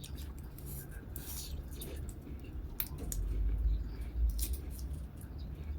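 Crab shells being cracked and picked apart: a handful of sharp snaps and clicks, with a low dull thudding rumble from about three seconds in.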